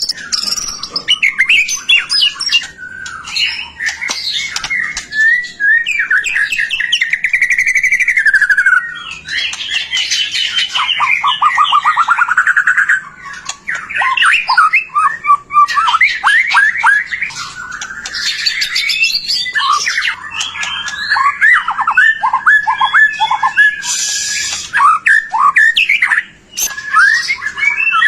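White-rumped shama (murai batu) singing loudly and continuously: a fast, varied song of whistles, sweeping glides and rapid trills and chattering phrases, barely pausing.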